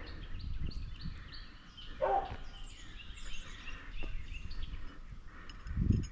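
Small birds chirping repeatedly over a steady outdoor background noise, with one louder, lower call about two seconds in.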